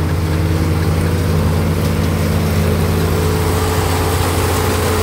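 Farm tractor engine running at a steady speed, driving a PTO-driven forage blower for unloading a wagon of chopped oatlage.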